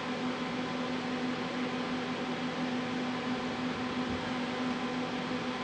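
Steady background hum: a constant low tone with fainter higher tones over an even hiss.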